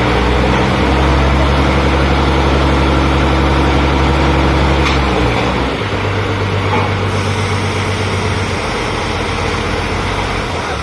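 Heavy diesel engine of a borewell drilling rig running steadily. About five seconds in its note changes and it runs a little quieter.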